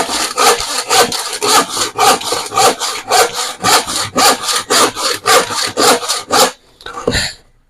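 Hand saw cutting through plywood by hand, with steady back-and-forth strokes at about two to three a second that stop about six and a half seconds in.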